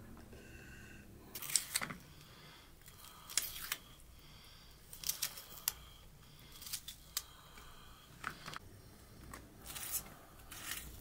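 Small kitchen knife slicing through ripe tomatoes held in the hand: short, sharp cuts, often in pairs, about every one to two seconds.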